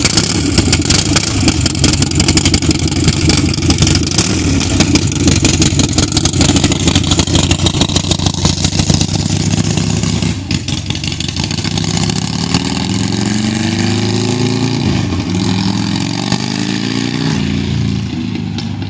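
Buell XB9SX Lightning's V-twin running loud on open headers with no muffler, a rapid pulsing exhaust. From about twelve seconds in the engine pitch rises and falls several times as it revs and shifts, and the sound fades near the end. It is running again after an engine reseal and a new wiring harness.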